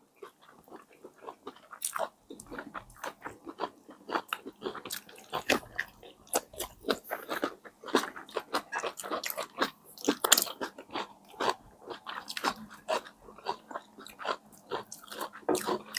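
Close-miked chewing and lip-smacking of two people eating ham, egg and cheese brioche buns: a steady run of small wet mouth clicks and smacks.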